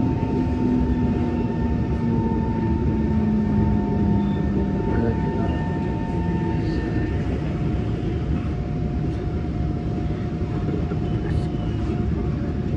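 Inside an SMRT C151 electric train pulling into a station: a steady running rumble with a faint motor whine whose tones sink slightly in pitch and fade out about halfway through as the train slows.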